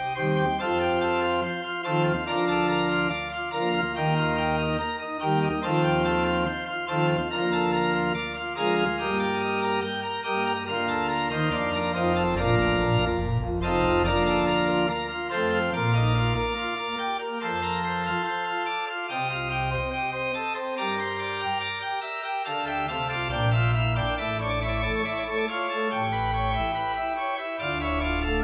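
Organ music: sustained chords over a bass line that steps from note to note.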